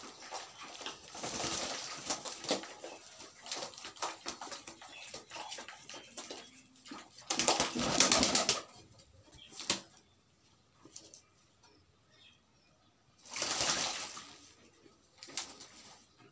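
Pigeons bathing in a plastic basin, flapping their wings in the water and splashing it about. The sound comes in bursts: a busy stretch early, the loudest flurry about eight seconds in, another around thirteen to fourteen seconds, with quieter spells between.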